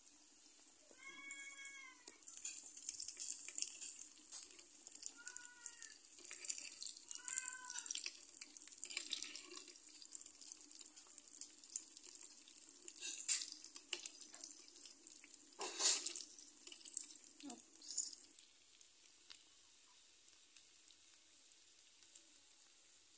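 Banana fritters sizzling in hot oil in a four-well frying pan, with spoon knocks on the pan and a sharp clatter about two-thirds of the way through as the fritters are turned. Three short high calls that rise and fall come in the first third.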